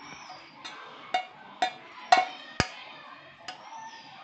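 Steel bowl knocked and scraped by hand while crumbly damp rice flour is emptied out of it: a string of sharp metallic clinks, about two a second.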